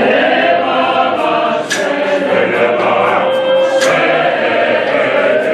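Church choir of men and women singing a hymn unaccompanied, many voices holding sustained notes in harmony.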